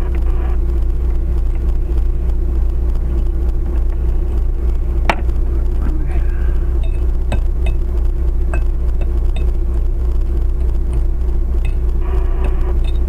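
Steady low rumble and hum of a stationary vehicle's idling engine, heard from inside the cab through a dashcam microphone, with a few scattered sharp clicks, the loudest about five seconds in.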